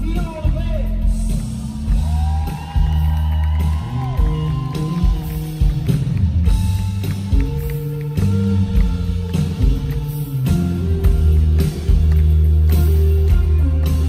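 Live rock band playing amplified electric guitars, bass and drums, with a man singing over it.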